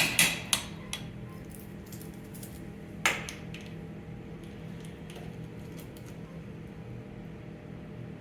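Metallic clicks and clatter of a fire alarm manual pull station being handled and pulled, with a jangle of keys. There is a sharp clack with a brief ring about three seconds in, then only a steady low hum.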